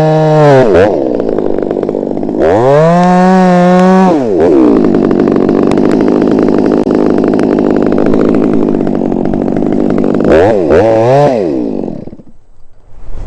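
Two-stroke chainsaw revved up to full throttle. It then drops to a lower pitch for about six seconds as it bogs under load cutting through wood, revs sharply again, and is let off so the sound dies away near the end.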